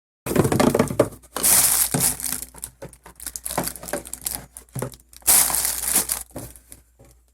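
Crinkling and rustling handling noise, as of plastic wrapping being crumpled. It is loudest twice, about a second and a half in and again about five seconds in.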